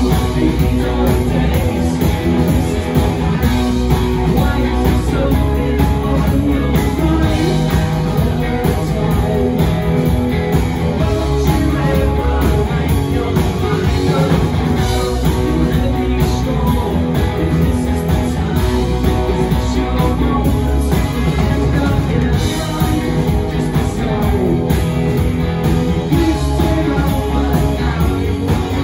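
Live rock band playing: electric guitars, bass guitar and drums, with a singer's vocals over them.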